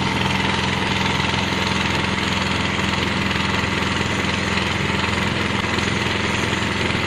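Diesel-powered mortar plastering machine running steadily: its diesel engine, air compressor and screw pump make a constant mechanical drone with a steady whine, under the hiss of compressed air blasting mortar out of the spray gun.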